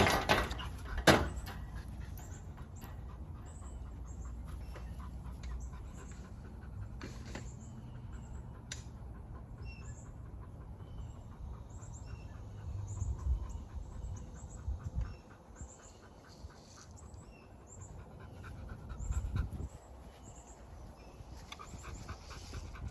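Puppy panting on a back tie, with a few sharp clicks, the loudest about a second in.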